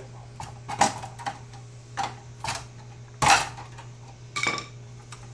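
Metal clicks and clinks from a pickup seat's steel frame and spring wires as a piece is pulled and hooked onto the frame by hand: about six scattered clicks, the loudest about three seconds in, over a steady low hum.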